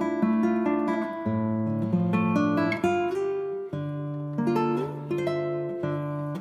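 Background music: acoustic guitar picking quick plucked notes, then moving through held chords.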